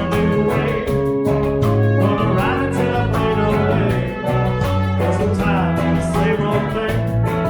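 Live rock band playing a song: guitar and bass over a steady drum beat.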